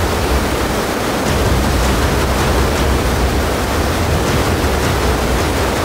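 Stream in flood, fast muddy whitewater rushing in a loud, steady torrent with a deep rumble underneath.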